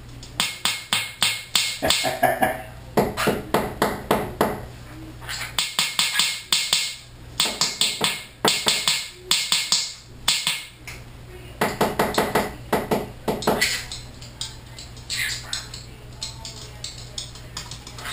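Green-cheeked conure tapping rapidly on the top of a glass shower door, in repeated bursts of quick, sharp taps, several a second, with short pauses between bursts.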